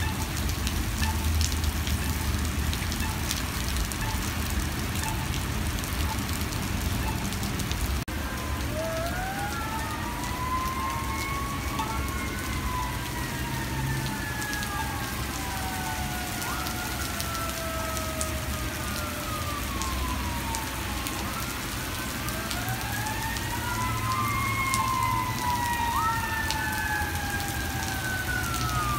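Heavy rain pouring onto pavement and streets, a steady hiss. From about eight seconds in, an emergency-vehicle siren wails over it, sweeping slowly up and down in pitch in overlapping glides.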